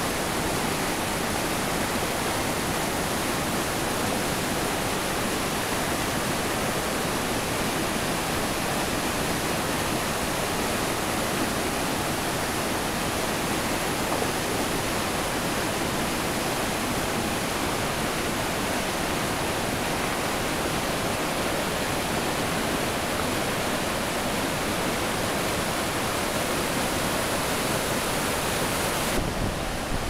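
Låtefoss twin waterfall: the steady rush of heavy falling water and the white-water river below it, an even roar with no breaks. Its tone shifts slightly near the end.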